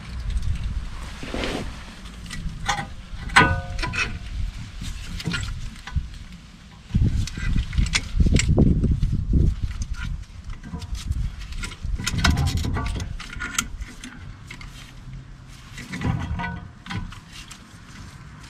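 Scattered clicks, knocks and low thuds of hand work with a brake caliper piston compression tool as it is fitted to the caliper and wound in by hand, with a few brief squeaks.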